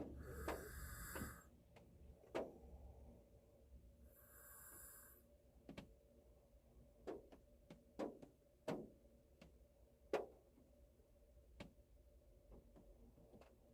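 Faint snoring from a man asleep in a car: two soft snores about four seconds apart, one at the start and one about four seconds in. Scattered sharp taps of drops land on the car between them.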